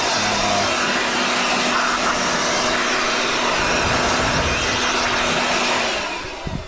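Handheld blower running steadily, a loud rush of air with a faint motor hum, blowing dust off a jet ski's hull. It is switched off and winds down near the end.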